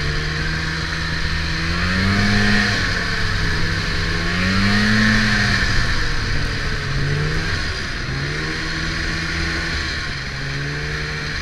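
Snowmobile engine running under way, its note rising and falling several times as the throttle is opened and eased, over a steady hiss.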